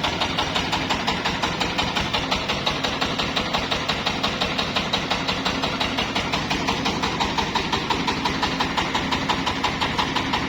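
Engine of a mobile rice huller running steadily, with an even pulsing beat of about six pulses a second.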